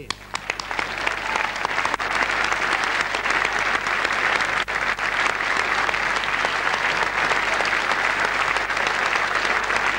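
Audience applauding: a dense patter of many hands clapping, swelling over the first second and then holding steady.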